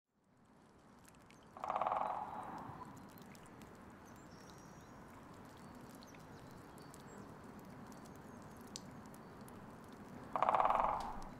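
Quiet woodland ambience with faint, scattered bird chirps. Twice, about two seconds in and again near the end, a short, rapidly pulsing sound stands out as the loudest thing.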